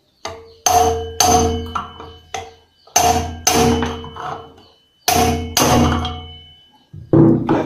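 Hammer blows on a tool driving the worn front wheel bearing out of a motorcycle wheel hub, each strike ringing metallically. The blows come mostly in pairs about half a second apart, roughly every two seconds, with a quicker flurry near the end.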